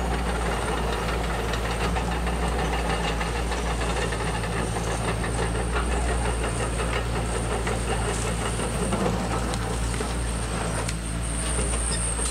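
Radio-controlled Carson cable excavator's electric drive and winch gearing running steadily, a low hum with a fast clicking rattle, as it moves its clamshell grab.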